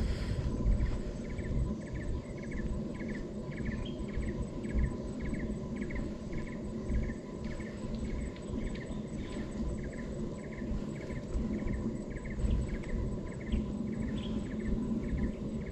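An insect chirping in an even rhythm of about two chirps a second, over a low rumbling background.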